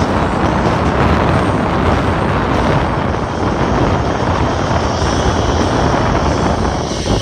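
Strong wind buffeting the microphone: a loud, steady rumble that rises and falls slightly in gusts.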